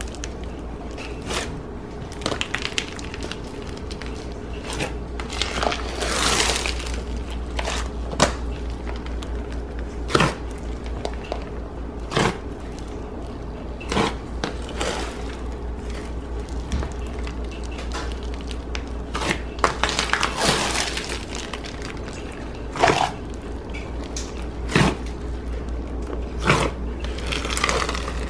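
Floam slime packed with foam beads being pressed, poked and folded by hand in a plastic tub, the beads crackling and popping in irregular bursts every second or two.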